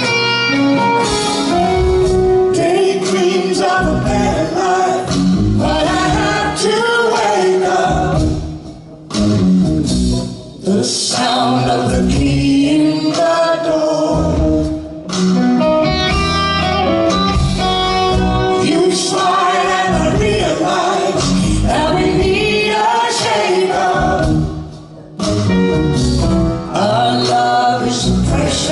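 A man and a woman singing a pop ballad duet with a live band. The music dips briefly a few times between phrases.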